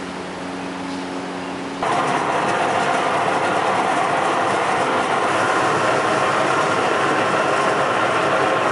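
Concrete mixer running steadily with its drum turning, a mechanical hum that becomes abruptly louder about two seconds in.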